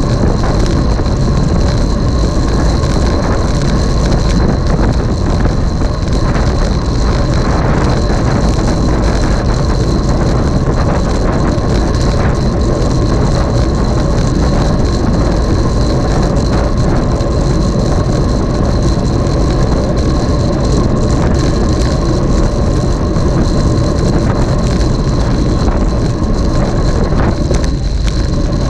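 Steady road noise from a moving camera: heavy wind rumble on the microphone with a continuous rattle, and a few faint steady tones, unchanging throughout.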